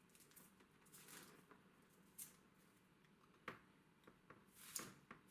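Faint handling of a cable: small plastic protective caps being pulled off the ends of an HDMI cable, giving a few quiet clicks and rustles.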